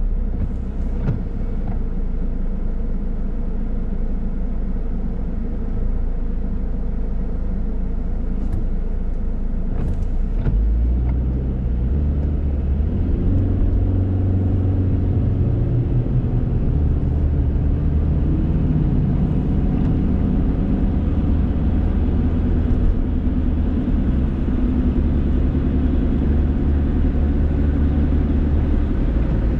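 Car engine and road noise heard from inside the cabin: the car sits at a steady idle, then about twelve seconds in pulls away, the engine note rising in steps as it speeds up. It then settles into steady cruising with tyre noise on wet pavement.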